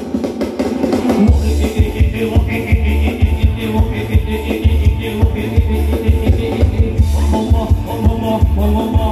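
Loud live band music for Thai ramwong dancing, with a drum kit keeping a steady beat under repeated bass notes.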